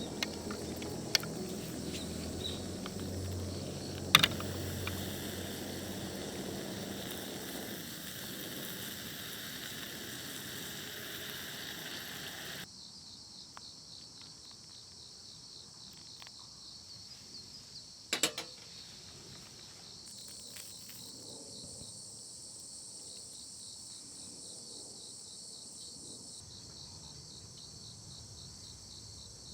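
Crickets chirring steadily in a high, finely pulsing band. A few sharp clicks or knocks sound over it, and a fuller mix of lower sounds underneath cuts off abruptly a little before halfway through.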